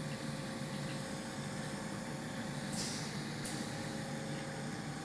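Steady low background hum, with a brief hiss a little under three seconds in.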